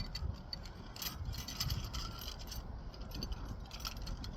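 Parts of a balloon shelf stand being handled and screwed together: scattered small clicks and clinks, with a low wind rumble on the microphone.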